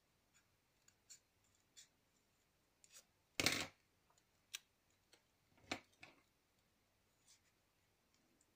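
Scissors and 160 g card paper being handled and cut, faint: scattered light clicks and snips, with a louder snip-rustle about three and a half seconds in and another near six seconds.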